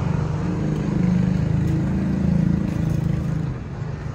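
Diesel truck engine running steadily with a rapid low pulsing. It grows louder in the middle and eases off about three and a half seconds in.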